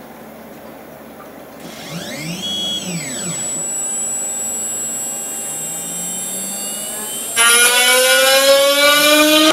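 3040 CNC router motors starting a job. About two seconds in, a motor whine rises and then falls in pitch as an axis moves. From about five and a half seconds, the water-cooled spindle's whine climbs steadily in pitch as it speeds up, and it turns much louder near the end.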